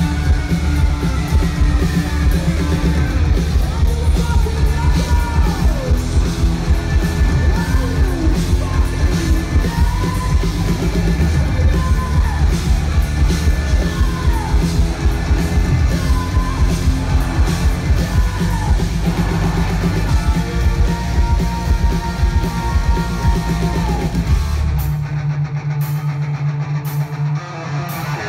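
Live rock band playing loud, with sung and yelled vocals over heavy bass, drums and guitar. About 25 seconds in, the bass and drums drop out, leaving the guitar.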